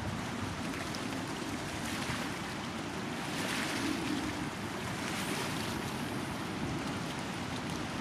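Wind-driven waves lapping and breaking against a stony shore, with a steady rush of wind across the microphone.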